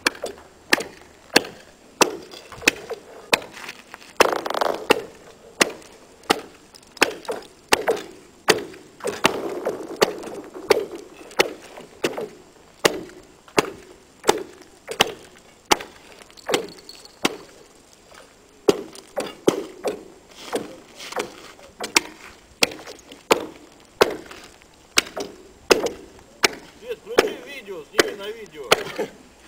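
Axe chopping into lake ice in steady, evenly spaced strokes, about one and a half a second, cutting out a fishing net frozen into the ice.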